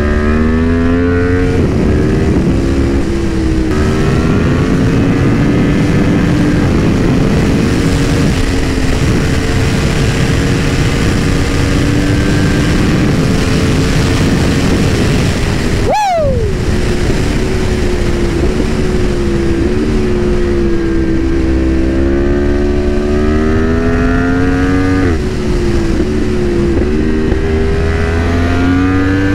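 Yamaha MT-10 SP's crossplane inline-four under way, its note rising through the revs and dropping back at each gear change, with one sharp fall in pitch about halfway through as the throttle closes. Heavy wind rush runs underneath.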